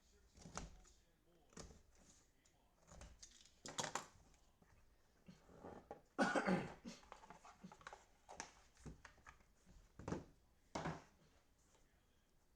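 Football trading-card box and packs being opened and handled: scattered light rustles, taps and knocks, with one louder rustle of about half a second about six seconds in.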